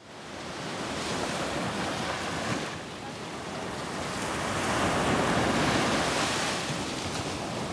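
Ocean surf washing onto a sandy beach, fading in at the start and swelling about five seconds in as a wave breaks and runs up the shore.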